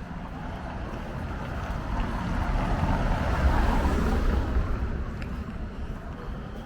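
A vehicle passing close by, its rumble and tyre noise swelling to a peak about halfway through and fading away.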